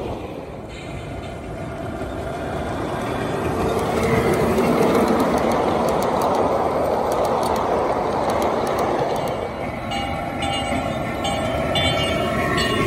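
Ride-on miniature railway cars rolling past on the rails: a rushing rumble of steel wheels on track, with scattered clicks over the rail joints, building to its loudest in the middle as the train goes by.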